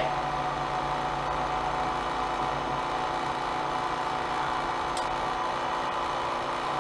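Professional cotton candy machine running: its motor and spinning head give a steady hum with a faint steady whine, and a single small click comes about five seconds in.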